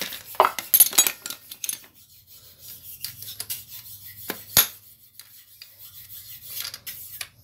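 Metal hand tool clicking and scraping against bolts and the engine casing as a pump is bolted onto a small two-stroke engine. There is a quick run of clicks at first, a single sharp knock about halfway, and a few more clicks near the end.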